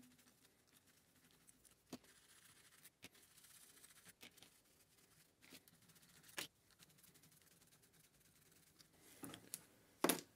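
Faint small clicks and scrapes of metal parts as a refrigerator compressor's cylinder-head bolts are unscrewed by hand, with a few sharper clicks, the loudest near the end.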